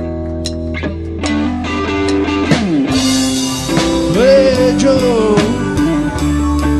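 Live rock band playing an instrumental passage: electric guitar lead with bent, sliding notes over bass, keys and drums.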